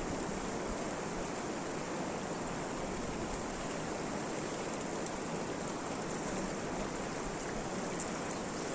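Steady, even rushing of water outdoors, with no change throughout.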